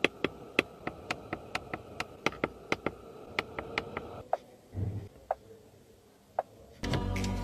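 A rapid, slightly irregular run of sharp clicks, about three or four a second, over a faint steady tone. The clicks thin out, a soft low thump comes near five seconds in, and music with a ticking beat starts just before the end.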